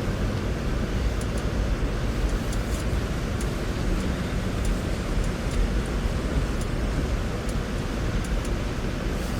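Force Gurkha 4x4 driving slowly on a slippery snow-covered road: a steady low rumble of engine and tyres, with faint scattered ticks throughout.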